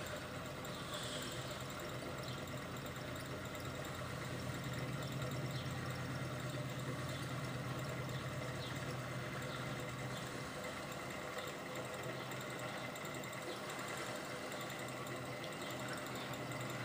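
Home-built gamma-type Stirling engine running steadily, heated by a vaporising alcohol burner, with a constant mechanical hum.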